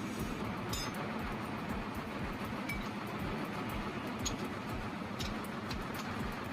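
An engine running steadily with an even low pulsing rumble, with a few light metallic clinks over it.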